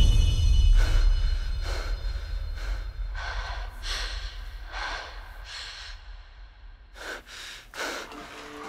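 A badminton player breathing hard, a string of short, heavy gasping breaths about one every half second to a second, over a low rumble, with a deep thud right at the start.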